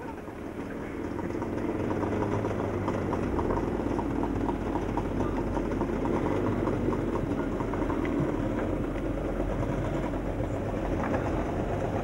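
A moving vehicle's engine and road noise heard from on board, running steadily. A low hum grows stronger a few seconds in.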